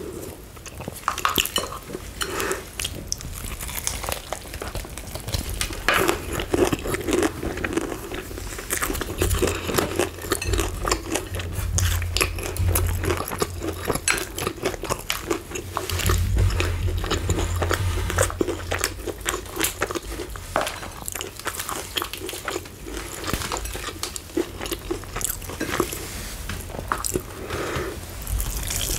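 Close-miked biting and chewing of crispy fried chicken: many sharp crunches of the breading, with chewing in between.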